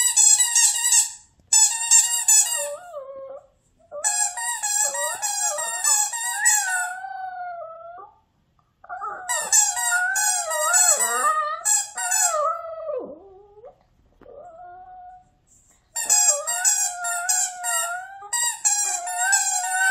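Small Maltese–Shih Tzu mix dog howl-singing: long, wavering howls that rise and fall in pitch, in about five phrases with short breaks between them.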